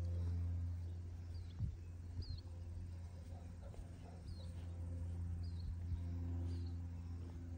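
Short high bird chirps, one about every second, over a steady low hum, with a couple of soft knocks in the first few seconds.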